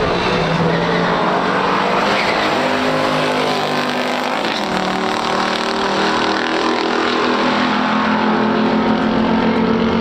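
A 1969 Plymouth Road Runner A12's 440 six-barrel V8 and a 1968 Camaro SS396's L89 396 V8 running at full throttle as they launch and accelerate down a drag strip. The engine note climbs in pitch, drops back about four and a half seconds in, then climbs again.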